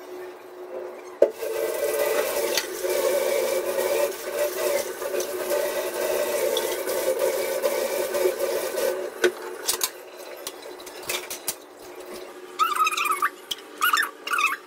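Tap water running hard into a metal pan in a kitchen sink, starting about a second in and cutting off about nine seconds in, followed by a few clinks of dishes.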